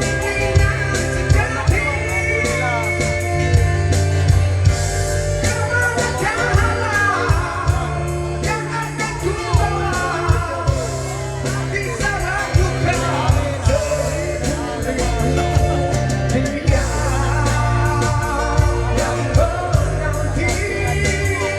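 A male voice singing a slow Malay rock ballad over a band accompaniment with bass, drums and guitar.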